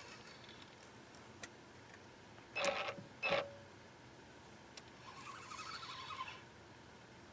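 Spinning reel being cranked as an angler reels in a small blue catfish on the line. There are two short loud noises about two and a half and three and a half seconds in, and a brief high whirring about five seconds in.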